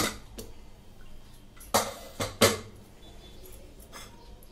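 Pressure cooker lid being unlocked and lifted off the pot: a sharp metal clank at the start, then three more clanks about two seconds in, and a lighter knock near the end.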